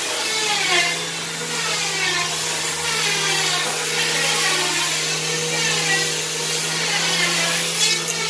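Handheld electric sander running on the wooden frame of a chair: a steady motor hum with a whine that sweeps up and down in pitch, about once a second, as the tool is pressed and moved over the wood.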